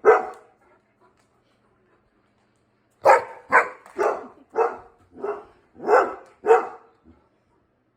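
Bernese Mountain Dog barking: one bark at the start, a pause of about three seconds, then a run of seven barks at about two a second.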